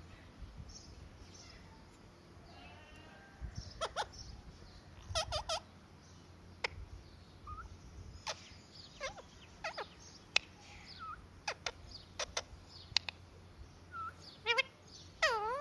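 Rose-ringed parakeet (Indian ringneck) giving a string of short chirps, clicks and squawks, some sliding up or down in pitch, with the loudest call near the end.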